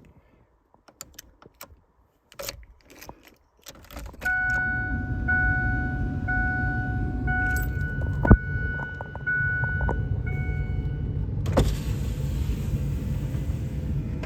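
2000 Ford Explorer: keys jangling and clicking, then about four seconds in the vehicle comes on with a steady low rumble and its warning chime sounding about once a second for some seven seconds. A single sharp click about eight seconds in, and from near the end a steady hiss over the rumble.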